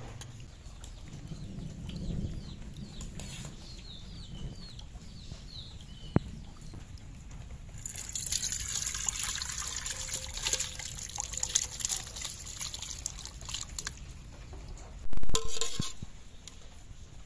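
Thick chicken curry poured from a cooking pan into an aluminium pot, a wet, splashing pour lasting several seconds in the middle. A single loud knock about fifteen seconds in.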